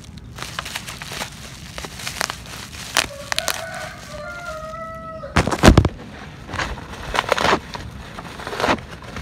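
Black plastic bubble wrap crinkling and rustling as hands pull it open. About three seconds in a drawn-out call with a stepping pitch lasts about two seconds, followed by a loud thump, the loudest sound.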